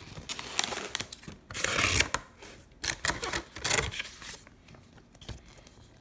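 Box packaging being handled and pulled open: irregular scraping, rubbing and tearing sounds, loudest about two seconds in and dying down near the end.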